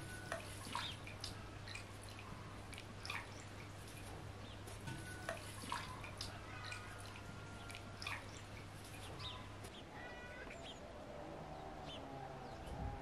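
Water splashing and dripping as peeled potatoes and vegetables are rubbed and lifted by hand in a glass bowl of water, with small clicks of the vegetables against the glass.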